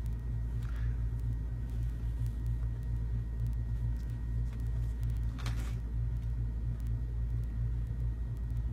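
Steady low background hum, with a brief faint rustle a little past the middle.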